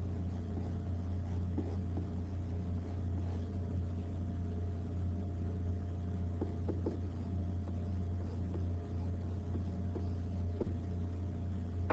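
Steady low hum of background noise, with a few faint taps scattered through it.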